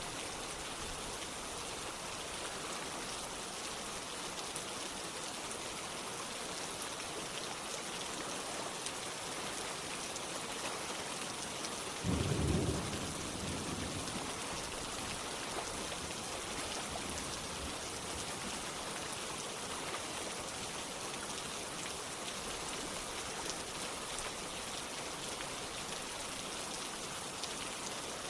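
Steady rain falling, an even hiss of many drops. A little before halfway, a short low rumble of thunder lasts about a second.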